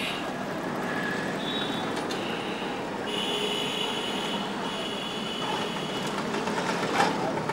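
Street traffic din: a steady rumble of vehicles, with two long high-pitched tones a little after the middle and a sharp knock near the end.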